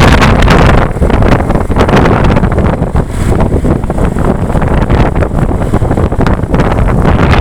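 Heavy wind buffeting the microphone, with road and engine noise underneath, as recorded riding close behind a tour bus on the move. No horn tune stands out.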